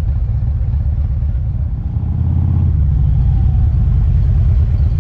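Motorcycle engine running on the road, buried in a heavy low rumble of wind on the microphone, getting a little louder about halfway through.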